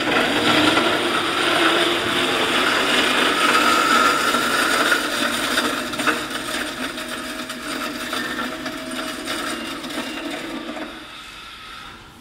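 Food waste disposal machine running and grinding food scraps: a loud grinding whir that starts suddenly, grows quieter after about six seconds and dies away about eleven seconds in.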